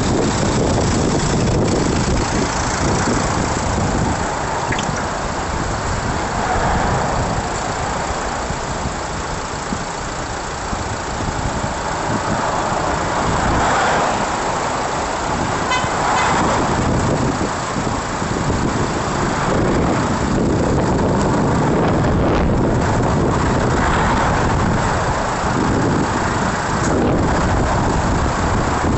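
City road traffic: car engines and tyre noise running steadily, heard from the roadside at a crossing.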